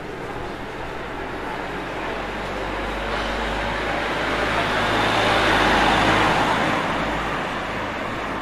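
A motor vehicle passing on a city street, growing louder to its loudest about six seconds in, then easing off.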